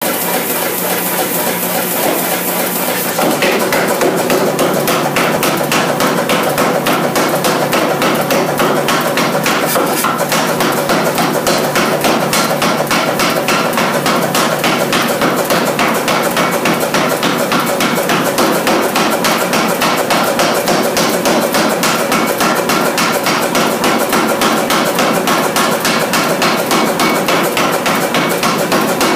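A restored 1929 Nazel 2B pneumatic power hammer pounding a hot Damascus steel billet in rapid, evenly spaced blows. The blows grow louder about three seconds in and then run on steadily.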